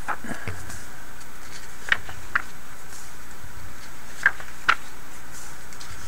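Pages of a thick glossy catalog being turned by hand, with a handful of short paper snaps as the pages flip over, over a steady background hiss.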